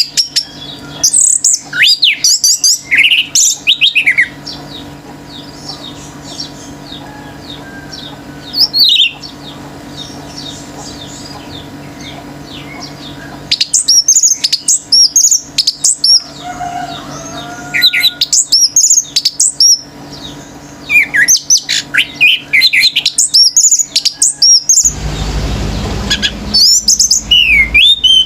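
Orange-headed thrush singing in loud, fast bursts of varied chirps and whistles, with short pauses between phrases. A steady low hum runs underneath, and a low rumbling noise comes in near the end.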